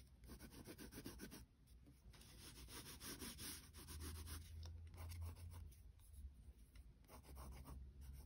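Faint scratching of a wax crayon rubbed back and forth on paper in quick strokes, colouring in a drawing; the strokes pause briefly about a second and a half in and thin out near the end.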